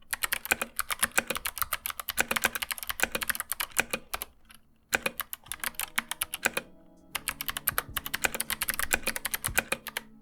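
Fast typing on a MelGeek Mojo60 Ember mechanical keyboard fitted with clicky Kailh Box Jade switches and SA keycaps: loud, sharp clicks in quick runs, broken by two short pauses.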